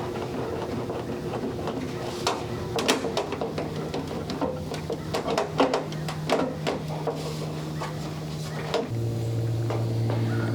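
A motor hums steadily, dropping to a lower, louder hum about nine seconds in, while a run of sharp metal clicks and knocks, typical of gutter work, clatters over it through the middle.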